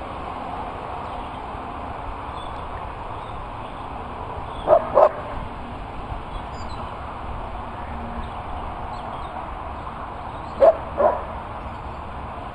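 Berger Picard herding dog barking at sheep: two quick double barks, about five seconds in and again near the end, over a steady background hiss.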